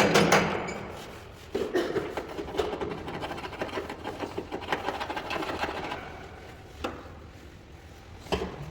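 Workshop repair noise: rapid, even hammering dies out within the first second. Then comes several seconds of irregular scraping and rubbing with small clicks, and a single sharp knock near the end.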